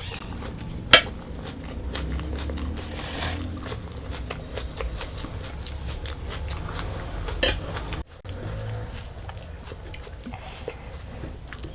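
Close-miked eating sounds of chicken curry and rice: chewing and biting with many small wet clicks, and a sharp tap about a second in and another near 7.5 s, like food or fingers knocking a plate.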